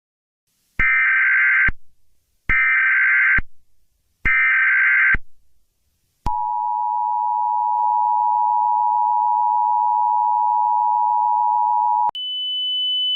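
Emergency Alert System header: three bursts of warbling data tones, each about a second long, then the two-tone attention signal, a steady dual tone held for about six seconds that cuts off suddenly. A single higher steady tone starts near the end.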